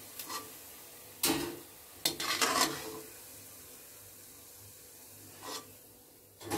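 Lentil vadas frying in hot oil in a steel kadai, a faint steady sizzle, while a perforated steel skimmer scoops them out, scraping and knocking against the pan a few times, loudest a little after a second in and around two seconds in.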